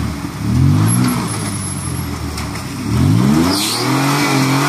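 Nissan Xterra's engine revving twice as the SUV tries to drive out of deep mud while stuck: the pitch climbs near the start, drops back, then climbs again about three seconds in and holds high.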